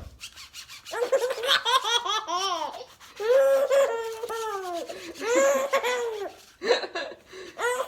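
A baby laughing hard: high-pitched belly laughs in four or five bouts of rapid 'ha-ha' strokes, with short pauses between them.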